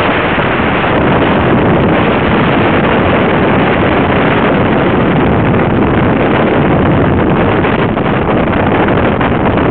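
Steady, loud wind noise on the microphone with road noise, from a car moving at speed.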